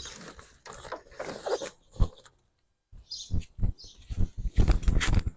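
Rustling of canvas tent fabric and straps being handled, with irregular knocks and taps. There is a short lull a little before halfway, then a busier run of knocks near the end.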